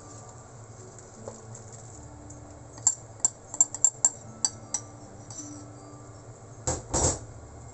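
Metal ladle clicking and tapping against a plastic container as palabok mix is scraped out into a pan of simmering sauce, a quick run of about ten clicks, then two heavier knocks against the pan near the end. A faint steady hum runs underneath.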